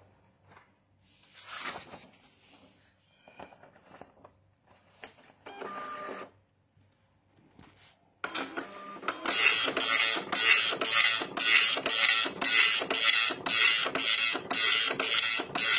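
Epson LQ-300+II 24-pin dot-matrix printer printing: a loud, rasping print-head buzz that repeats line by line, about two passes a second, starting suddenly about eight seconds in. Before it there are only scattered light clicks and a brief whirr from the printer being handled and readied.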